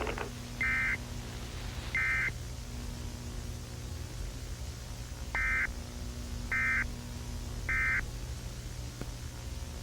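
Emergency Alert System end-of-message data bursts: five short buzzy electronic bursts, two and then a group of three about a second apart, over a steady low hum. They are the SAME code that closes the test broadcast.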